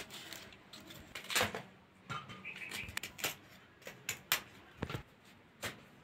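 Kitchen knife cutting through fresh cauliflower stems to break off florets: a series of crisp, irregular snaps and clicks, roughly one every half second to a second.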